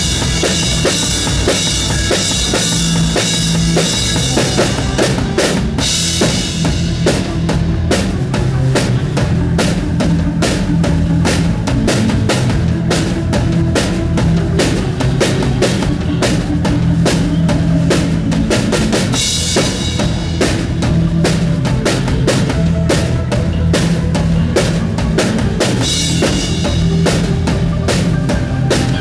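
Drum kit played in a busy groove, a quick run of bass drum and snare hits over held low bass notes, with heavy cymbal wash at the start and again near the end.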